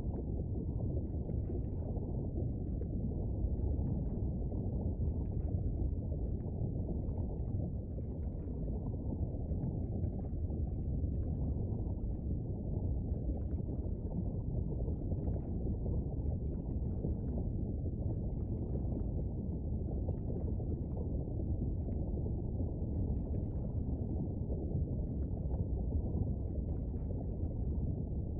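Steady low rumble of a looped volcano-and-lava ambience sound effect, with faint irregular crackles above it.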